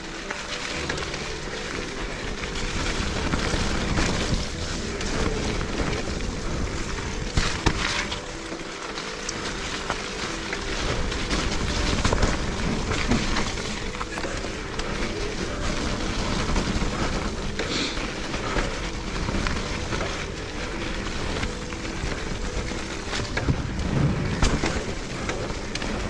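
Specialized Turbo Levo electric mountain bike ridden over rough, muddy forest ground: steady tyre noise with frequent rattles and knocks from the bike as it goes over bumps.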